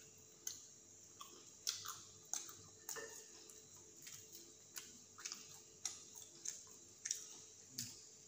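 Faint crunchy chewing of fried snack bites: short crisp crunches at a loose, uneven pace, about one every half second to a second.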